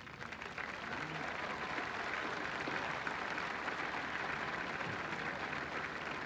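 Large crowd applauding. The clapping swells about a second in and then holds steady, with scattered voices in it.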